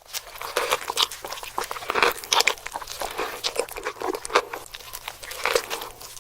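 Close-miked mouth sounds of a person biting and chewing a burger: a dense, irregular run of sharp clicks and smacks.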